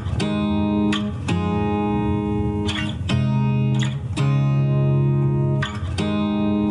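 Background music: sustained guitar notes and chords changing every second or two.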